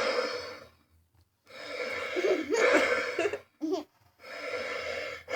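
A white noise sound machine playing its recorded cat purr through its small built-in speaker: rasping purr cycles of about two seconds each, separated by short pauses.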